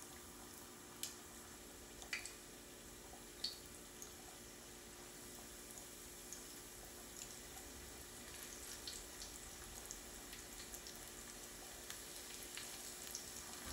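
Flour-coated chicken pieces frying in hot vegetable oil in a deep cast iron skillet: a faint, steady sizzle with scattered fine crackles, and a few sharper clicks in the first few seconds.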